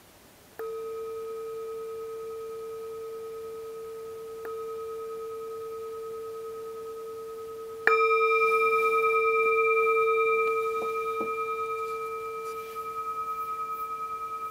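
Metal singing bowl struck three times: a strike about half a second in, a light tap around four seconds, and the loudest strike about eight seconds in. Each rings on as one steady tone with higher overtones and fades slowly, with a pulsing wobble toward the end.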